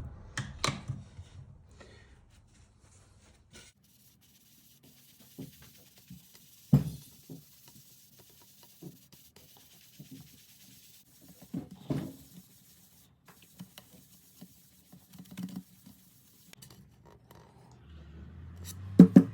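Cloth rubbing scratch remover into the lacquer of a tom-tom shell, soft and intermittent, with scattered handling clicks and knocks, the sharpest about seven seconds in.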